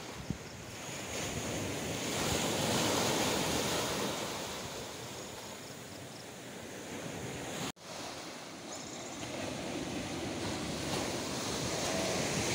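Sea surf washing onto a sandy beach, with wind on the microphone; the rush of the waves swells and eases, and the sound cuts out for an instant about eight seconds in.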